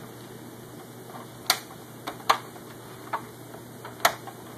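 Sharp plastic clicks and taps as a small flathead screwdriver pries at the clips of an Xbox 360 plastic side plate: about half a dozen separate clicks, three of them louder.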